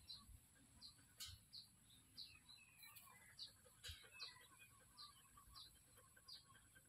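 A bird calling faintly: one short high chirp repeated evenly, about every two-thirds of a second, with two soft clicks in between.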